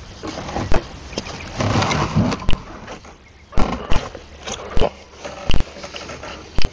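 A heavy wooden gate being lifted and rocked onto sawhorses: a series of sharp wooden knocks and bumps at uneven intervals, with scraping and shuffling in the first half.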